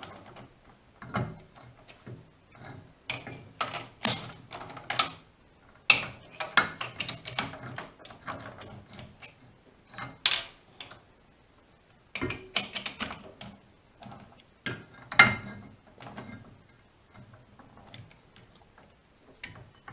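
Irregular metallic clicks, clanks and knocks from hand work on a four-jaw lathe chuck, its jaws being turned around and reset.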